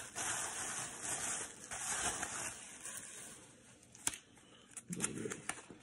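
Rustling of paper packaging as trading cards are handled and unwrapped, with a few sharp clicks from about four seconds in.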